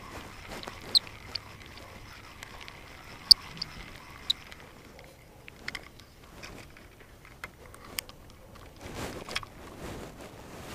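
Scattered light clicks and short squeaks, with a soft swish about nine seconds in.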